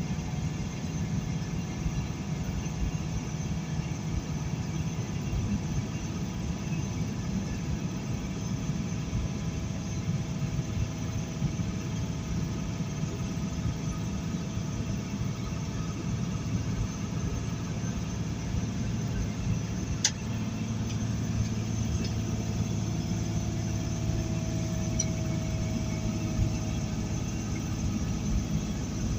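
Fully loaded semi-truck's diesel engine and road noise, heard from inside the cab at highway speed: a steady low drone. One short sharp click about two-thirds of the way through.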